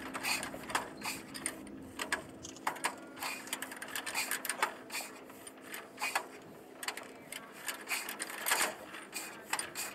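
Irregular mechanical clicking and clacking at the front of a 1907 Brush Runabout, a single-cylinder car, as its starting crank is worked by hand, over a steady low hum.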